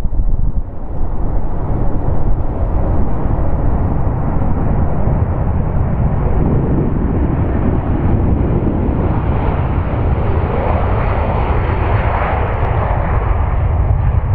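Four Rolls-Royce RB211-524 turbofans of a Boeing 747-400 freighter running at takeoff power during the takeoff roll: a loud, steady, deep rumble. A rushing, higher-pitched noise builds up over the middle of the stretch and is strongest about ten to thirteen seconds in, as the jet comes closest.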